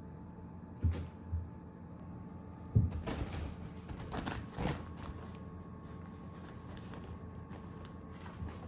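Kittens scampering and pouncing in a fabric play tunnel: a few soft thumps in the first three seconds, then a stretch of rustling from about three to five seconds in.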